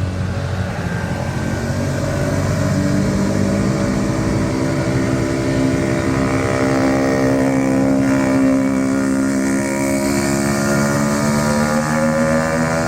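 Diesel locomotive engine running loud as a train passes: a deep pitched drone that swells after about two seconds, shifts slightly in pitch midway and begins to fade near the end.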